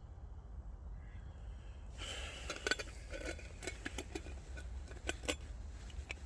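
Camping gear being handled and rummaged through: from about two seconds in, rustling with light clicks, knocks and clinks over a low steady rumble.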